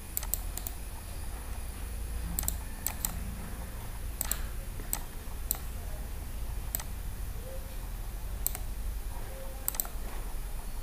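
Sparse clicking from a computer mouse and keyboard: about a dozen irregular clicks, some in quick pairs, over a low steady hum.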